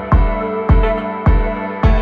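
Background music with a steady electronic beat, about two beats a second, over sustained synth chords.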